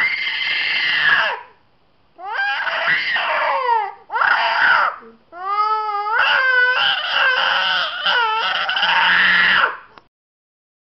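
A four-year-old boy crying and screaming in distress: four long wailing bouts with short breaks for breath between them. The cries break off abruptly about a second before the end.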